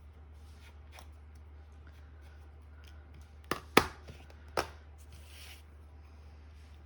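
Paper craft pieces and tools being handled on a tabletop: a few sharp taps and clicks in the middle, the loudest near the middle, followed by a brief rustle, over a steady low hum.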